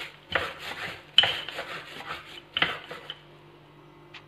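Wooden rolling pin rolled over bajra dough on a plastic sheet, the plastic rustling and scraping, with three strong strokes. It stops about three seconds in, and a short click follows near the end.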